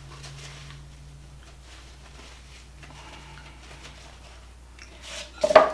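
Soft rustling of a paper towel wiped along a rubber spatula over a low steady hum, then a sharp clatter with a brief ring near the end as the utensil is set down.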